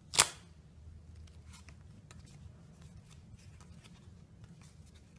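Playing cards handled in the hands: one sharp snap of the cards just after the start, then faint clicks and rustles as they are worked.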